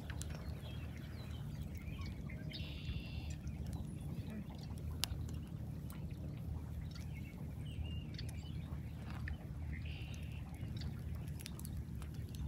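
Steady low rumble with two short bird calls, one about three seconds in and another about ten seconds in, and scattered faint clicks.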